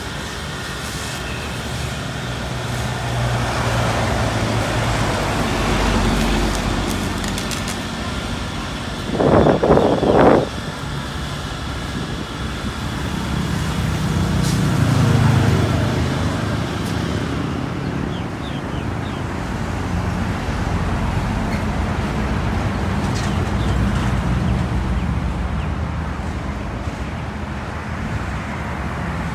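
A fire truck's engine running amid passing road traffic, with the hiss of its hose spraying water that fades out about halfway through. Two short loud noises come about nine and ten seconds in.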